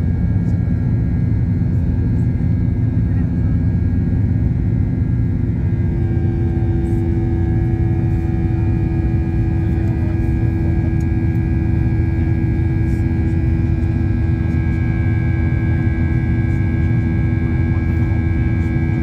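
Jet airliner cabin noise during the climb after takeoff: a steady, loud rumble of engines and airflow, with steady humming tones that grow stronger about six seconds in.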